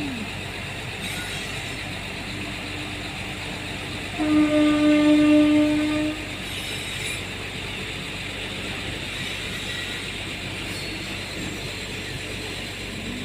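Air horn of a WAG-5 electric locomotive sounding one long blast of about two seconds, about four seconds in, over the steady running noise of a slow-moving freight train.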